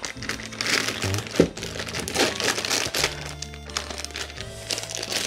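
Packaging crinkling and rustling in irregular bursts as a parcel is torn open and its contents unwrapped, over background music with held low tones that come in about halfway through.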